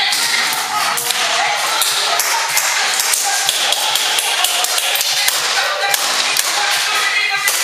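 Airsoft guns firing during a game, a dense, irregular run of sharp snaps and clicks from shots and BBs striking the wooden and plywood barriers.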